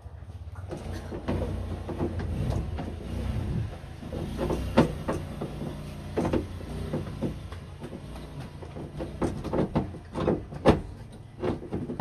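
Metal clicks and knocks as the latch and lock mechanism of a Hyundai Starex sliding door is handled and fitted back inside the door panel, over a steady low rumble. The sharpest knocks come about five seconds in and again near ten and eleven seconds in.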